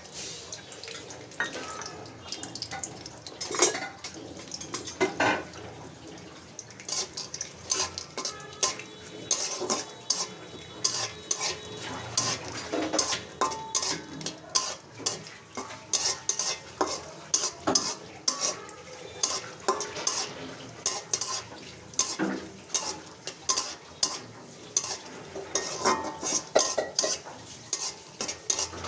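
Spatula stirring and scraping chopped nuts frying in ghee in a karai, with repeated scrapes and clinks against the pan over a light sizzle; the strokes come faster in the second half.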